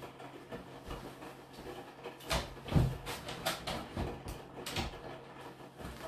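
Hotpoint NSWR843C washing machine in its main wash, the drum turning with water and laundry sloshing and thudding inside over a steady low hum. A run of uneven swishes and thumps comes a couple of seconds in, the loudest about three seconds in.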